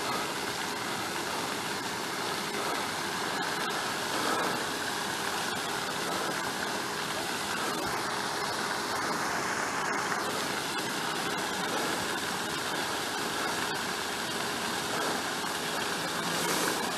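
Steady rushing wind and road noise from riding an electric mountain bike, with no distinct events.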